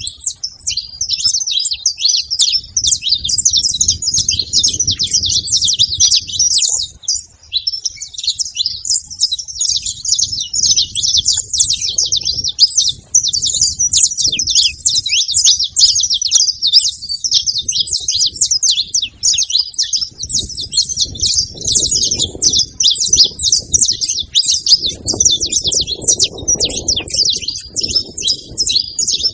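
A flock of saffron finches (canários-da-terra) chirping and chattering together in a dense, unbroken stream of short, high notes. A faint low rumble comes and goes underneath.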